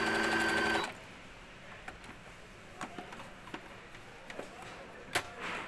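Brother computerized sewing machine stitching steadily, then stopping abruptly about a second in. Afterwards a few light clicks and fabric handling, with one sharper click near the end.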